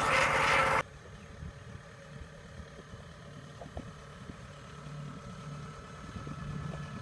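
Kubota RT120 single-cylinder diesel on a two-wheel walking tractor, running loud and steady, cuts off abruptly under a second in. It gives way to a much fainter, steady low engine hum from a tracked combine harvester, with a few light clicks.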